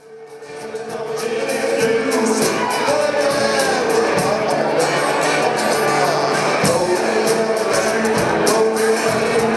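Background music fading in over the first couple of seconds, then playing at full level with a steady drum beat.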